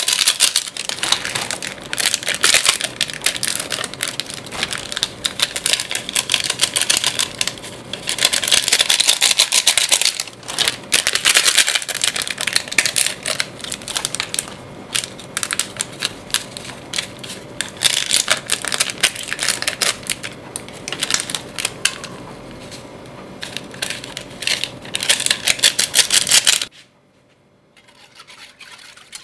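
Foil seasoning sachets from Maggi curry instant noodles crinkling and crackling as they are shaken and squeezed empty over a pot, a dense run of rapid clicks that rises and falls in bursts. It stops abruptly near the end.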